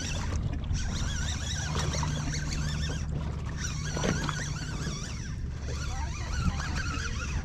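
Boat's outboard motor running at idle, a steady low hum, under a wash of water and wind noise, with faint wavering high tones over it.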